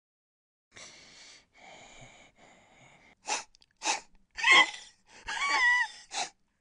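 An off-screen monster sniffing and snorting: three soft sniffs, then a run of louder, sharper snorts, two of them with a growly, bending pitch.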